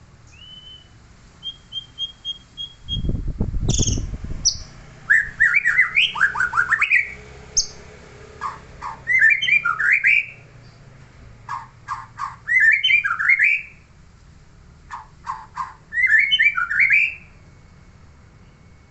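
A songbird singing the same phrase four times, sharp clicks followed by a quick run of whistled notes. A loud low thud comes about three seconds in.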